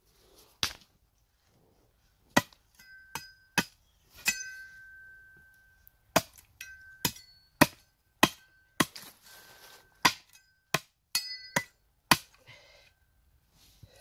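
Meat cleaver chopping at the end of a wooden stick to sharpen it into a spear point: about eighteen sharp, irregular chops. Many of them leave the steel blade ringing with a clear tone, the longest ring lasting over a second about four seconds in.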